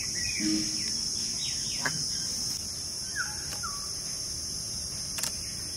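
Outdoor ambience of insects buzzing steadily at a high pitch, with a few short, falling bird chirps over it.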